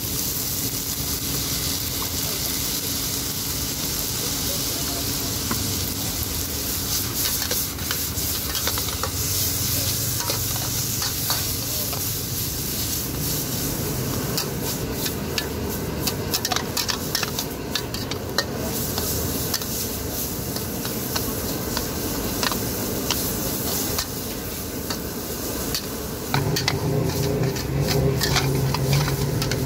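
Pad thai noodles and bean sprouts sizzling in a hot wok over a gas burner, with a metal spatula and ladle scraping and clinking against the pan as the noodles are tossed. The clinks come thicker in the second half, and a low rumble joins near the end.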